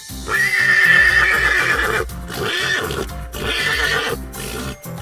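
Horse neighing: one long whinny of nearly two seconds, followed by two shorter whinnies, over background music.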